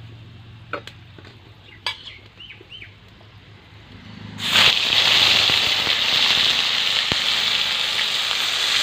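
Onion paste hitting hot oil in a kadai. After a few light clicks, a loud, steady sizzle starts suddenly about four seconds in as the paste begins to fry.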